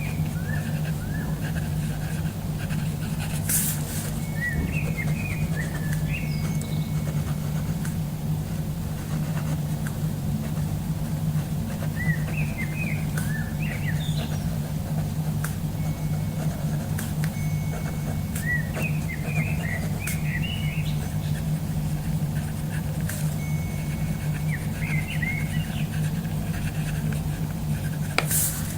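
Birds chirping in short recurring clusters over a steady low hum, with two sharp clicks, one a few seconds in and one near the end.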